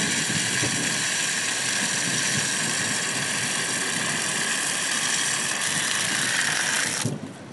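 Water running from an outdoor standpipe tap into a kettle, a steady rushing hiss that stops abruptly about seven seconds in as the tap is shut.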